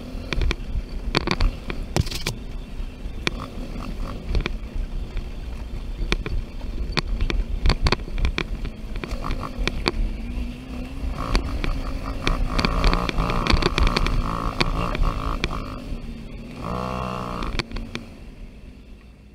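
Suzuki Ozark 250 ATV's single-cylinder four-stroke engine running as it rides a bumpy dirt trail, with frequent knocks and rattles from the machine over the bumps. A brief rise and fall in engine pitch comes near the end, then the sound fades out.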